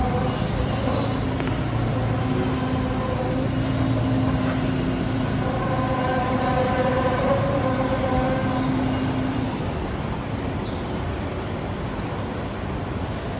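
A long, droning groan made of several held tones over a rumbling noise, the tones swelling and fading over several seconds: one of the unexplained 'strange sounds in the sky' recordings.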